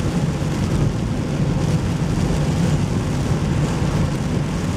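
Steady low rumble of road and engine noise inside a car driving in the rain, with a hiss of rain and wet road over it.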